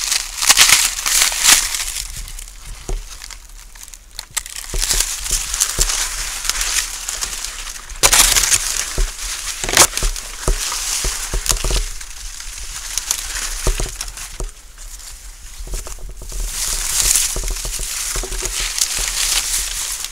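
Dry, mature corn leaves and stalks rustling and crackling as someone pushes through the rows, with sharp crinkling snaps and several louder surges.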